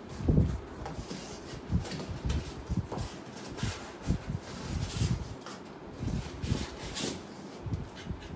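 Large cardboard TV box being opened by hand: flaps and white packing pieces handled, giving irregular soft thumps, knocks and scrapes.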